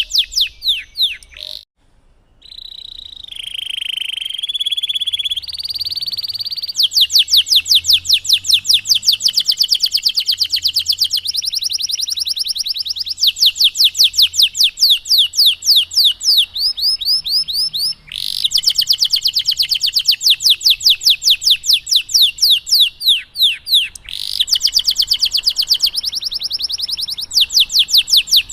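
Domestic canary singing long rolling trills of rapidly repeated high notes. A short break comes about two seconds in, followed by a few held buzzy notes, before the fast rolls resume and run on with only brief breaks.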